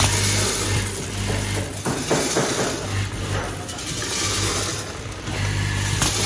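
Vertical packing machine running: seeds pour and rattle into its stainless-steel feed bowl as a hiss that swells and fades about once a second, over a low machine hum that cuts in and out several times.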